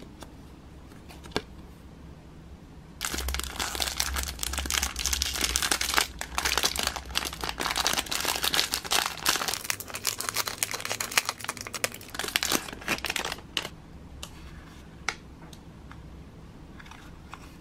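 Clear cellophane bag crinkling loudly as fingers open it and slide a small cardboard box out, for about ten seconds starting a few seconds in. Near the end only a few light clicks and taps of the paper box being handled.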